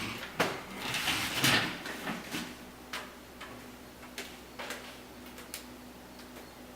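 Handling noise from working with tubing and tools: rustling and knocks at first, then scattered sharp clicks. A faint steady hum sets in about two seconds in.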